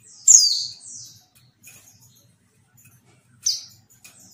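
Female white-eye (pleci) calling: a loud, high call that sweeps downward about a third of a second in, trailing into a softer note, then a shorter call near the end, with faint little chirps between.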